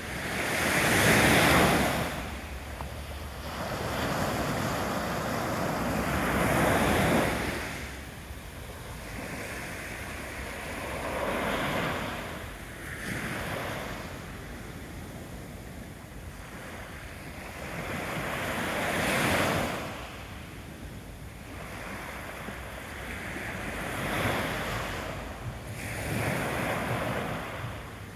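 Small waves of a calm sea breaking and washing up a sandy beach, swelling into a hiss of surf every four to six seconds and ebbing between; the loudest surge comes about a second in.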